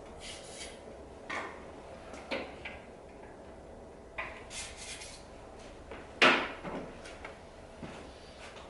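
Scattered light knocks and clunks, as of things being handled and set down, with the loudest clunk about six seconds in.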